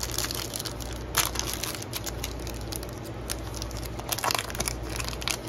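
Foil wrapper of a Chronicles football trading-card pack being torn open by hand, crinkling and crackling, with louder tears about a second in and again around four seconds.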